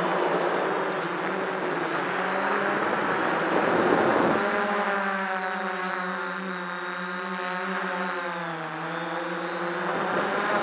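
F550 hexacopter's brushless motors and propellers whirring, heard close from the camera mounted on the frame. For the first four seconds a rushing air noise covers them. After that a steady buzzing hum comes through, its pitch wavering as the throttle changes.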